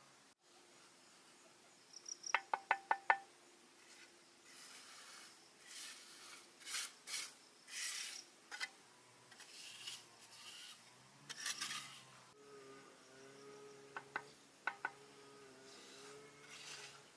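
A quick run of about six light taps with a short ring, then a series of irregular rasping scrapes, typical of hand work with a tool, and two or three more taps near the end.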